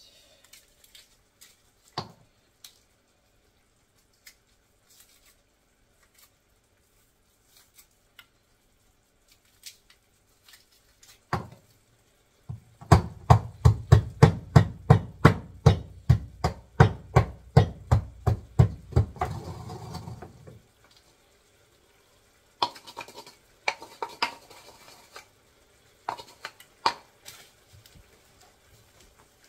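Pestle pounding in a stone mortar: a fast, even run of heavy knocks, about three or four strikes a second for some seven seconds, followed by a few lighter knocks and scrapes.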